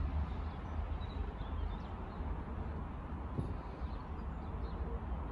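Steady low outdoor rumble, with a few faint high bird chirps.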